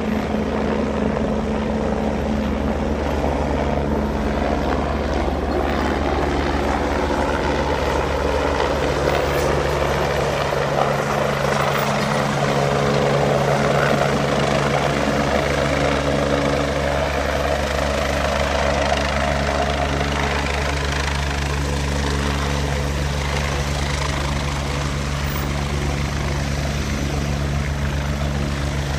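A large engine running steadily at constant speed, a low hum with a dense noisy layer over it.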